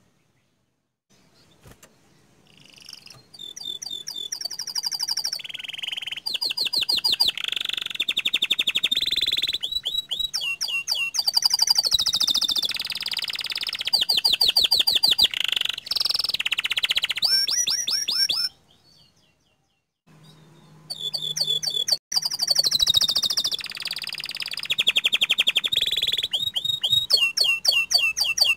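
Domestic canary singing long phrases of rapid rolling trills and fast repeated sweeping notes, high-pitched. The song starts about a second or two in and breaks off for about two seconds past the middle before resuming.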